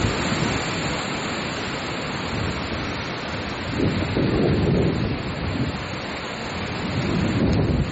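Strong wind gusting and buffeting the microphone, with low rumbling surges rising and falling over a steady rushing hiss.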